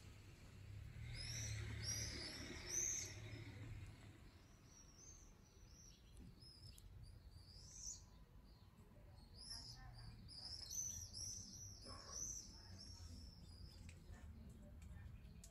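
Small songbirds chirping and twittering in quick runs of short, high notes, one bout about a second in and a longer one from about nine to thirteen seconds in.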